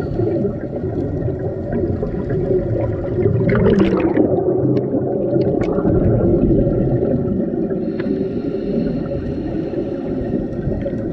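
Underwater sound recorded through a camera housing: a muffled rumble with the gurgle of scuba regulator exhaust bubbles, surging about three and a half seconds in and easing after about six seconds.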